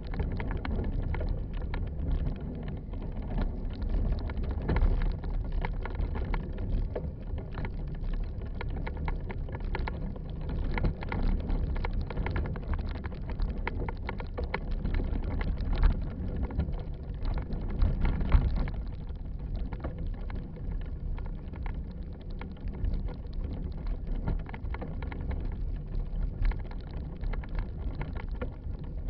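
Rumble and constant rattling clicks of a camera mount bouncing along a rough dirt trail on a moving vehicle, with a few harder jolts, the loudest about sixteen seconds in.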